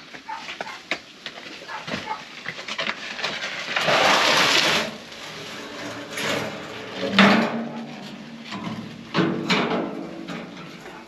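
A loaded steel wheelbarrow being tipped to dump fill sand: a rush of pouring sand lasting about a second, then a few knocks and scrapes as the upended barrow is shaken out.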